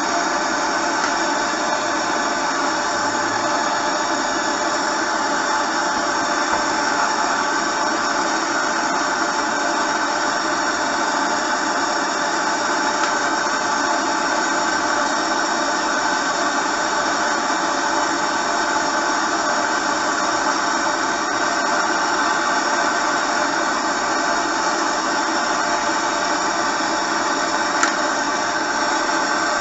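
Gas soldering torch burning with a steady hiss, heating a copper pipe for tinning, with one sharp click near the end.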